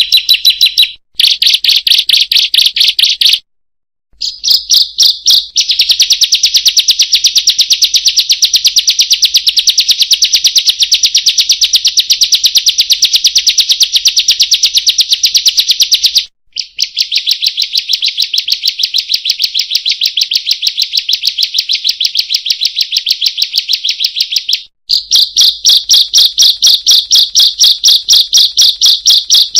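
Ciblek (bar-winged prinia) singing: long, loud runs of fast, evenly repeated high-pitched notes, broken by a few short pauses. It is a lure recording of the open-beaked song that bird-keepers play to prompt and tutor caged birds.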